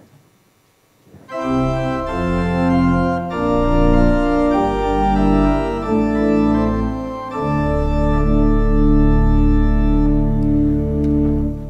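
Church organ starts about a second in and plays sustained chords over a deep bass line: the introduction to the opening gathering hymn.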